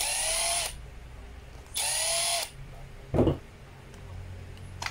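Cordless impact driver spinning in two short runs, each ending in a falling whine, as it backs out screws from a power drill's rear cap. A brief spoken syllable comes about three seconds in.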